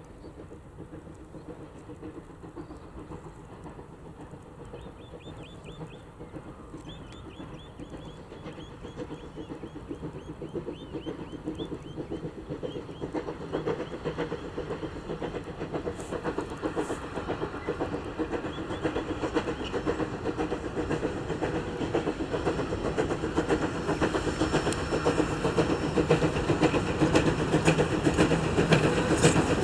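Steam locomotive NM25 hauling carriages and approaching, its rapid exhaust beat and the rumble of the train growing steadily louder.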